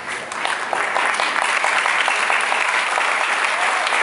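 Audience applause: many hands clapping together, building up within the first half second and then holding steady.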